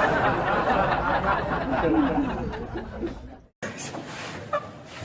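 People laughing and giggling. It stops abruptly about three and a half seconds in, and a quieter stretch follows.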